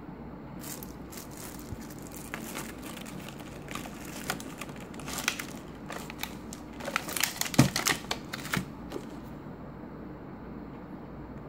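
Clear plastic wrapping crinkling and rustling as a small item is unwrapped by hand, with a scatter of small clicks and taps that grow busier and louder past the middle, one sharper knock standing out.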